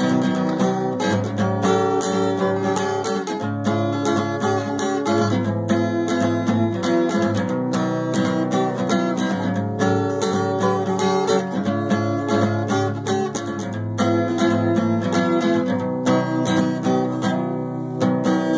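Steel-string acoustic guitar strummed in a steady rhythm, chord after chord.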